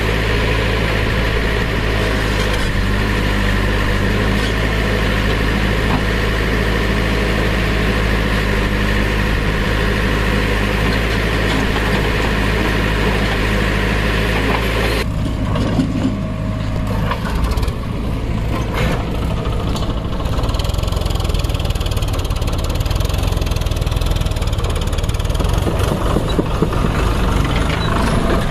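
Heavy diesel engine running steadily. About halfway through, the sound changes suddenly to a lower, rougher engine note that carries on.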